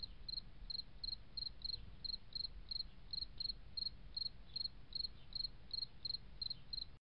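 Cricket chirping steadily, about three short high chirps a second, over a faint low hum; it cuts off suddenly near the end.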